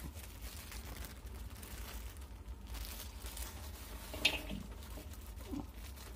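Clear plastic bag crinkling and rustling as sliced red chilies are shaken out of it into a wok, with one louder crackle about four seconds in. A steady low hum runs underneath.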